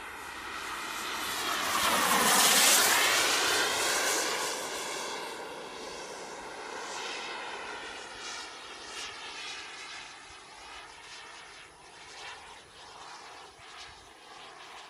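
Turbine-powered RC jet, a Boomerang Taurus with a JetCat P160 turbine, flying past with a rushing jet whine. It swells to its loudest about two and a half seconds in, then fades away as it flies off.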